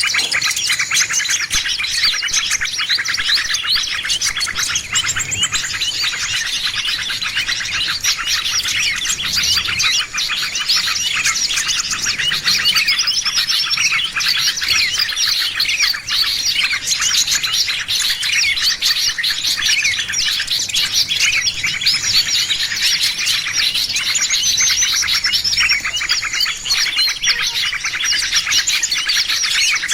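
Dense, continuous chorus of many small songbirds chirping and trilling rapidly over one another, a recorded bird-lure call for attracting small birds.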